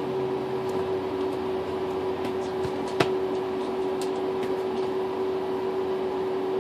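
A steady hum with one constant pitched tone, under light rustling and soft taps of foam squishy toys being rummaged through in a bathtub, with one sharp click about three seconds in.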